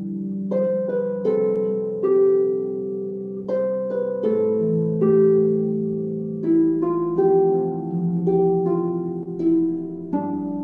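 Harp playing a slow, calm melody: single plucked notes ring out one after another, about one or two a second, over held low bass notes that change every couple of seconds.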